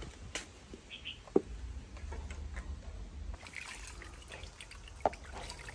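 Water splashing and dripping in a plastic tub as hands stir it, with a few small sharp splashes early on and a livelier stretch of splashing in the second half.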